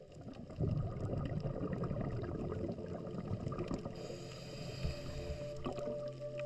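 Underwater water noise, a rumbling, gurgling wash with small ticks, under soft background music held on steady notes; a brighter hiss joins about four seconds in.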